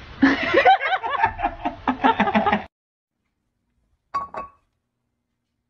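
Loud bursts of human laughter for about two and a half seconds, cut off suddenly. About four seconds in come two quick knocks.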